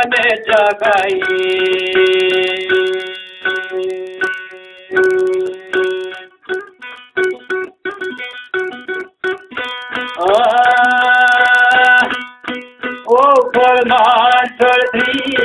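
Albanian folk song: a plucked string instrument plays a quick, busy line, and a voice holds long notes over it, one rising into a wavering held note about two-thirds of the way through.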